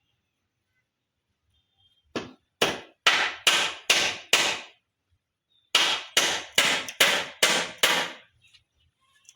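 Hammer driving nails into timber: two runs of about six blows each, roughly two a second, with a short pause between the runs.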